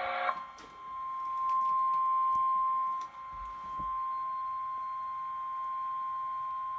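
Emergency Alert System attention signal: a single steady beep-like tone just above 1 kHz, the National Weather Service's 1050 Hz alert tone, sounding ahead of a warning message. In the first instant it overlaps the cut-off end of a louder, buzzier multi-tone sound.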